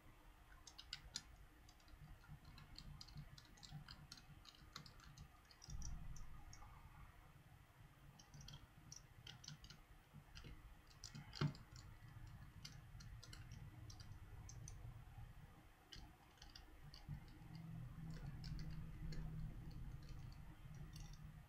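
Faint, irregular small clicks and ticks of a Phillips screwdriver and small plastic and metal phone parts being handled while screws are taken out of a Samsung Galaxy Ace.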